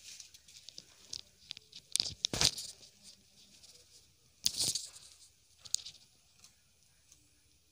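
Rustling and scraping as fingers dig planting holes in loose potting soil in a plastic grow bag, with a few louder scuffs about two seconds in and again around four and a half seconds.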